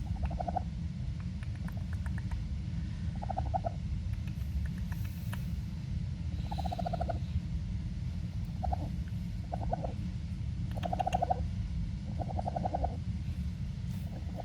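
Baby raccoon making short trilling calls, about eight of them, each under a second. A steady low rumble runs underneath.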